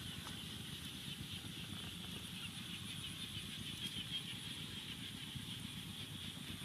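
Open wood fire burning, with faint crackles and pops, over a steady outdoor background hiss.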